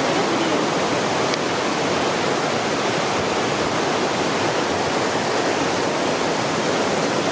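Close-up roar of Njupeskär, a waterfall of about 90 to 100 m swollen with rainwater: a loud, steady, dense rush of falling water with no change in level.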